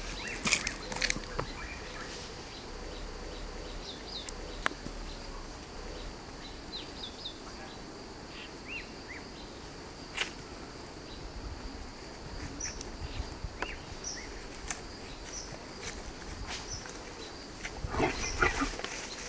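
Outdoor ambience: a steady high-pitched insect drone with birds chirping here and there, a few sharp clicks, and a short louder burst of noise near the end.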